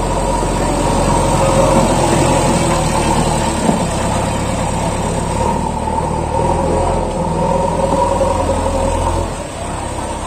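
JCB backhoe loader's diesel engine running hard as the machine drives and scoops soil with its front bucket, its pitch shifting with the throttle and easing off near the end.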